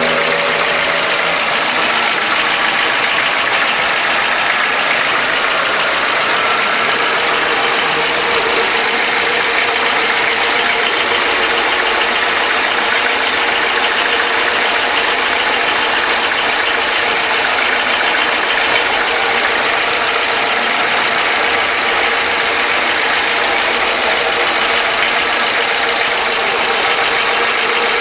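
Volkswagen AP four-cylinder engine idling warm with a steady, rapid knocking. Three mechanics took the noise for possible piston skirt slap (piston-to-bore clearance), a known trait of the AP engine; it appears only when the engine is hot at idle.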